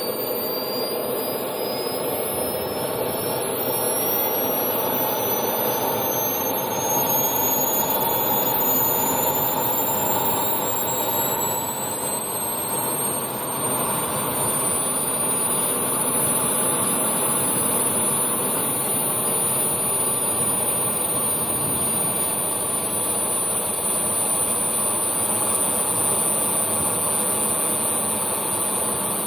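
A radio-controlled jet's small turbine engine running with a high whine that climbs steadily in pitch for about fifteen seconds as it spools up, then holds a steady pitch over a constant rush of exhaust noise.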